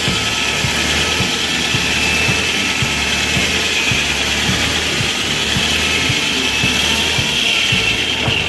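An engine running steadily under load, with a constant high whine over a low hum.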